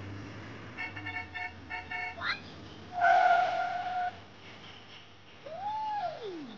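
Horn-like toots: a quick run of short beeps, then a steady horn tone lasting about a second, which is the loudest sound. Near the end comes a call that rises and then falls in pitch.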